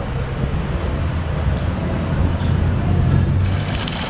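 Motor vehicle noise: a steady low rumble of engines and traffic.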